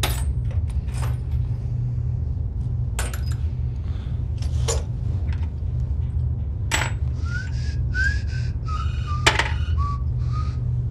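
Small metal parts clinking and clicking sharply now and then as they are handled, over a steady low hum; in the last few seconds a person whistles a short tune of sliding notes.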